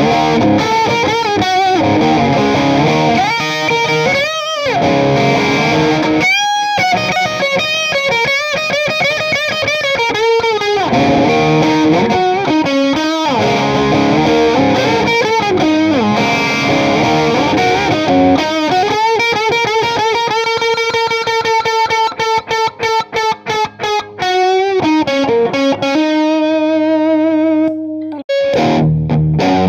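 Les Paul-style electric guitar played through a Marshall Silver Jubilee 2525H amplifier with distortion, playing a lead line. It has held notes with string bends and wide vibrato, and a run of fast, clipped notes about three quarters of the way through.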